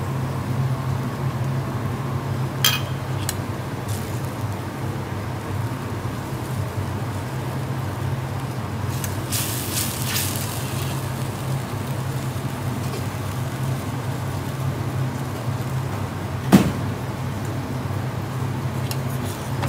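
A metal spoon stirring and scraping garlic honey sauce in a small stainless steel pan, mostly around nine to ten seconds in, with a few clinks of the spoon against the pan, the sharpest near the end. A steady low hum runs underneath.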